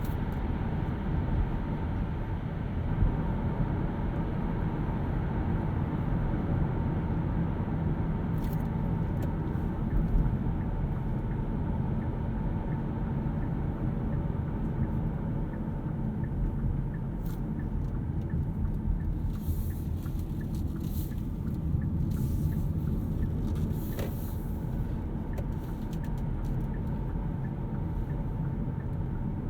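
Hyundai Kona Electric driving: a steady low rumble of road and tyre noise with no engine sound, since the car runs on an electric motor. A few brief faint hisses and clicks come and go in the second half.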